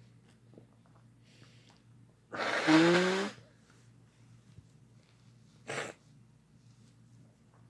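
A person sneezing once, loudly, about two seconds in, after a faint inhale; the voiced end of the sneeze falls in pitch. A second, much shorter sharp burst of breath follows near six seconds.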